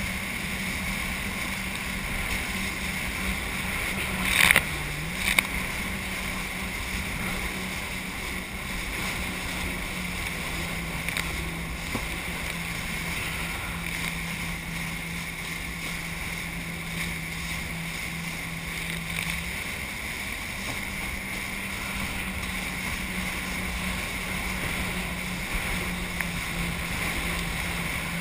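Jet ski engine running at speed with a steady tone under the rush of water and spray. About four seconds in there is a loud splash, and the engine note dips briefly. Later the note settles a little lower for several seconds before rising again.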